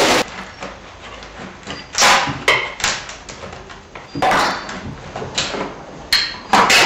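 A thin metal blade prising and scraping under the edge of a cured carbon fibre laminate to free it from a rigid mould: irregular scrapes and sharp knocks as the part is levered loose.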